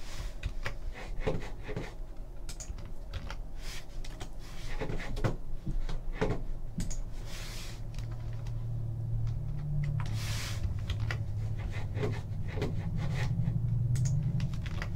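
Irregular light clicks and knocks of a computer keyboard and mouse being used, with a couple of brief rustles. A low steady hum comes in about halfway through.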